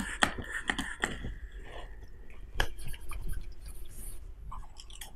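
Trigger spray bottle squirted onto the hands several times, sharp spritzing clicks, followed by the palms rubbing together with a soft, scratchy rustle.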